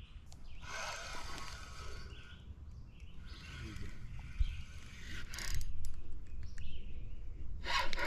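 Spinning reel cranked fast in bursts of a second or two, with short pauses between: a fast reel-and-pause retrieve. There are a few light clicks near the middle.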